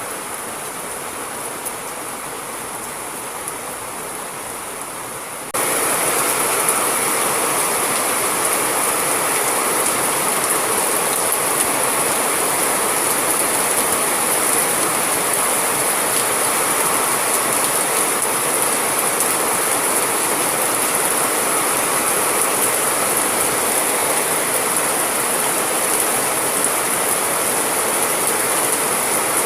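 Steady rain, a dense even patter. About five seconds in it abruptly jumps louder and brighter, as if another rain recording were cut in, then stays steady.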